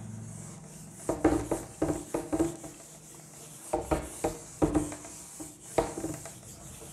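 Blackboard duster wiping chalk off a blackboard: quick back-and-forth rubbing strokes in short runs, each with a faint squeak.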